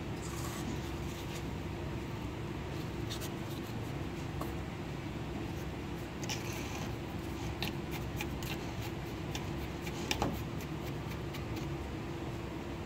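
Plastic spoon stirring and scraping a baking soda, ginger juice and strawberry syrup paste in a clear plastic cup, with irregular light clicks and taps and one louder knock about ten seconds in, over a steady background hum.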